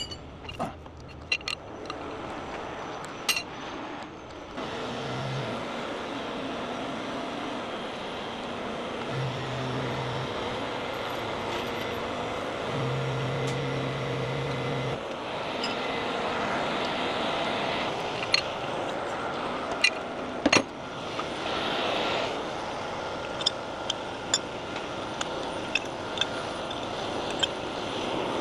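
A 50-ton rotator tow truck runs steadily, coming up about four and a half seconds in, while its boom is moved. Scattered sharp metal clanks from chains, hooks and rigging being taken off sound over it.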